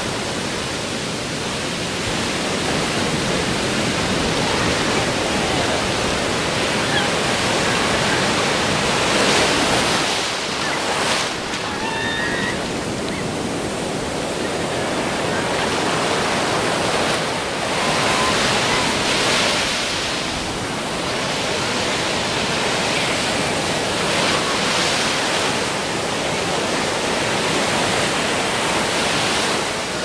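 Heavy ocean surf from a stormy sea, waves about three metres high, breaking and foaming water rushing up the beach. It is a steady wash of noise that swells louder every few seconds as each wave breaks.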